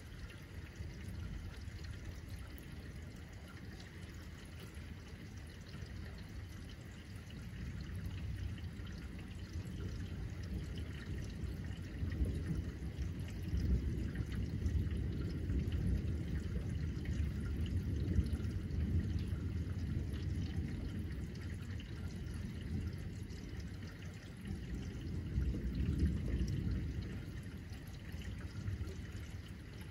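Steady rain falling and dripping, with low rolling thunder swelling up about halfway through and again near the end.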